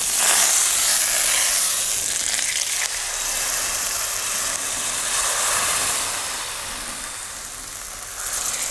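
Hot frying pan sizzling and hissing with leftover oil after pancake frying, dying down over the last couple of seconds as the pan is lifted off the heat.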